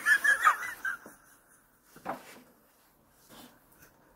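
Maltese puppy giving a brief, high-pitched, wavering whine in the first second, followed by a few faint taps.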